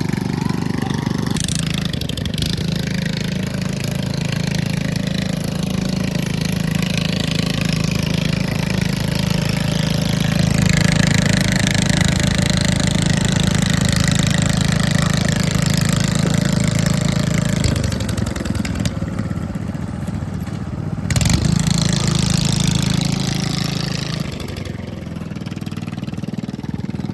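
Small lawn mower engine running steadily, its note shifting and dropping a few times, with a brief louder surge about 21 seconds in.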